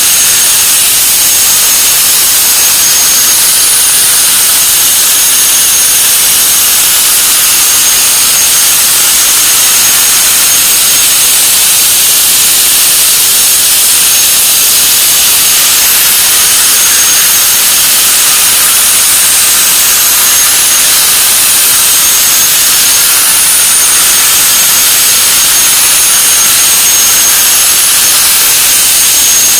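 CNC plasma torch cutting through 50 mm thick plate: a loud, steady hiss with a thin, high whistle running through it.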